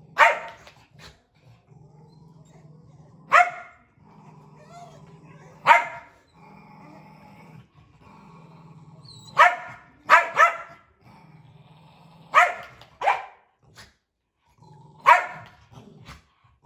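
Small dogs play-fighting: a low, continuous growl broken by about nine sharp barks every couple of seconds, some in quick pairs.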